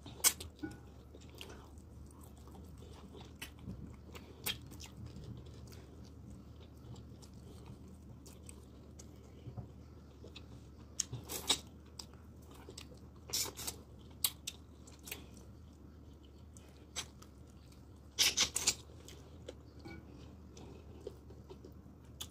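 A person chewing and biting meat and fufu with vegetable soup, eaten by hand, with wet mouth and finger-sucking smacks. Scattered sharp smacks run throughout, with louder clusters just past the middle and again near the end.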